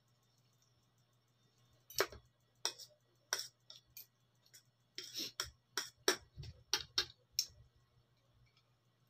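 Metal spoon and fork clinking and scraping against a plate: about a dozen sharp clicks between about two and seven and a half seconds in.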